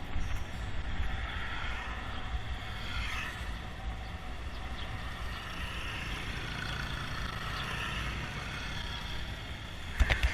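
Steady low rumble of wind on the microphone with road noise, with a few sharp knocks near the end.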